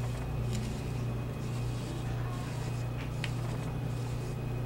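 Steady low hum, with a few faint soft ticks of a foam brush dabbing and spreading glossy coating over a paper photo print.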